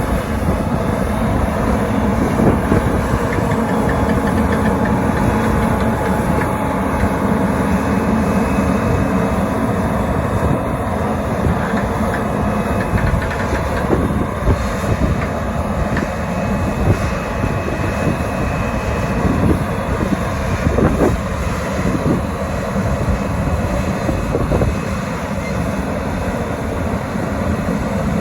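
Diesel engine of heavy farm machinery running steadily, with a continuous low hum and noisy rumble.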